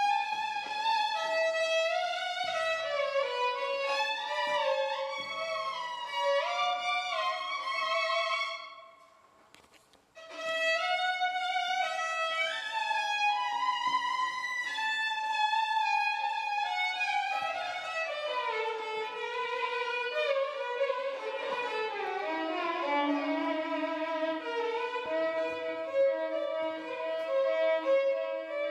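Violin music playing a melody. It fades out about nine seconds in and starts again a second later, with longer held notes in the second half.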